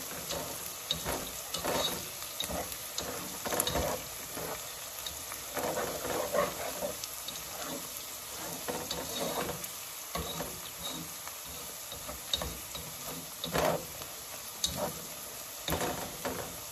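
Chopped onions frying in oil in a coated saucepan, with a spatula stirring and scraping the pan in irregular strokes over a steady gentle sizzle as the onions soften.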